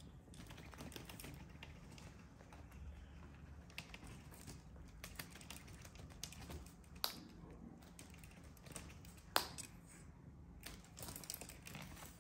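Scattered light clicks and taps of cats' claws and paws on a hard tile floor as they chase and pounce on a feather wand toy. There are two sharper knocks, the louder about three-quarters of the way through.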